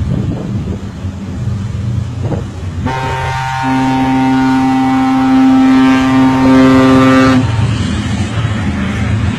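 A ship's horn sounding one long, steady blast that starts about three seconds in and lasts about four and a half seconds, over a low rumble.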